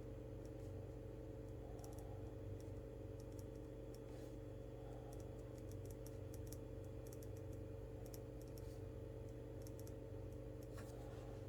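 Faint, irregular light clicks, like keys or a pen tapping at a desk, over a steady low electrical hum.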